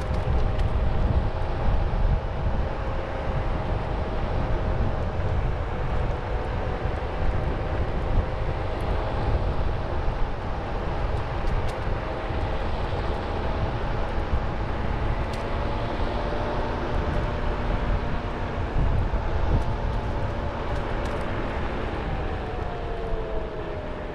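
Onewheel electric board's hub motor whining steadily as it rides over asphalt, several tones together above a heavy rumble of tyre and wind noise. The whine drops in pitch near the end.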